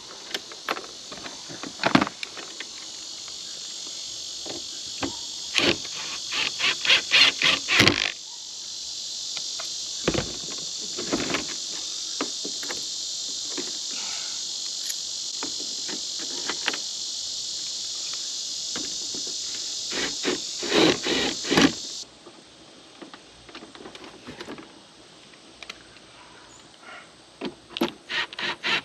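Bursts of rapid clicking from fastening the RV air conditioner's shroud back in place. A steady high insect buzz runs underneath and cuts off suddenly about two-thirds of the way through.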